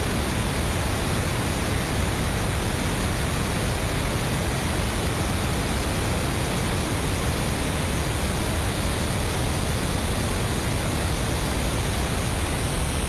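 Steady rush of air and jet engine noise on an airliner in cruise flight, heard as an even, unbroken hiss without distinct tones.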